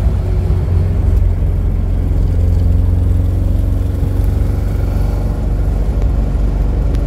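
Mk2 Ford Escort with a Vauxhall 2.0 16-valve XE engine, heard from inside the cabin while driving at speed: a steady engine drone with road and wind noise.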